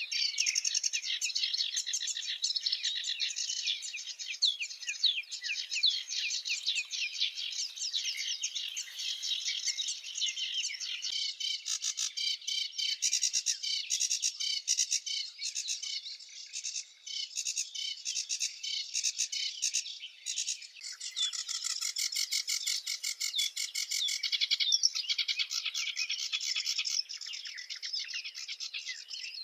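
Many small birds chirping and twittering at once, a dense, continuous chatter of short high calls.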